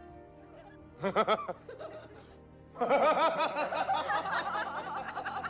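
Laughter in quick, wavering bursts: a short burst about a second in, then a longer, louder run from about three seconds in, over faint music.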